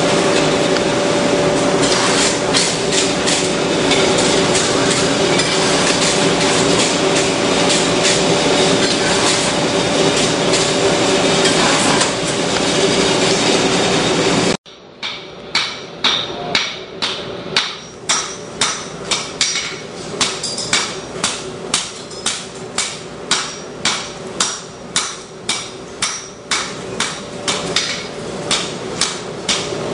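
Hammer blows on hot steel at the anvil, ringing, in a steady rhythm of about three strikes every two seconds. In the first half the blows are fainter under a loud steady noise; about halfway through it cuts to clear, distinct strikes.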